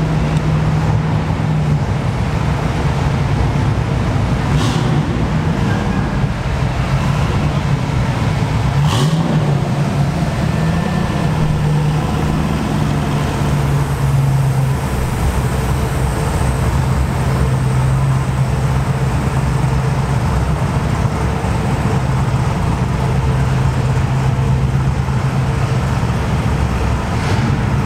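Car engines running at low revs as cars drive slowly past, a steady idle whose pitch shifts now and then, with two sharp clicks about 5 and 9 seconds in.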